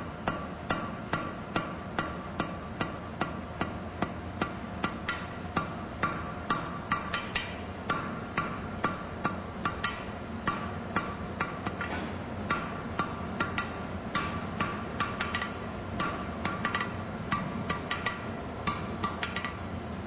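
Hand hammer striking a hot steel bar on an anvil, about two to three blows a second, as the tip of the bar is drawn to a point and rounded. Each blow rings with the anvil's metallic tone.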